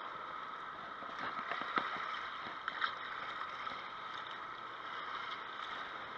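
Shallow river water lapping and gurgling over shoreline rocks, a steady wash of water, with a couple of short clicks about two and three seconds in.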